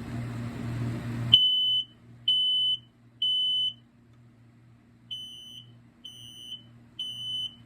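1276 smoke alarm sounding its horn on test: a high-pitched beep in the temporal-three pattern, three half-second beeps, a pause, then three more, the second group quieter.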